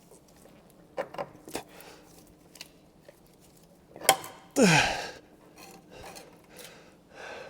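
A few light clinks of hand tools being handled, then a sharp clink about four seconds in, followed by a man's long sigh that falls in pitch.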